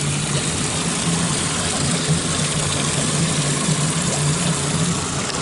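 Twin Suzuki 90 hp four-stroke outboard motors idling steadily, with water churning and splashing around their lower units.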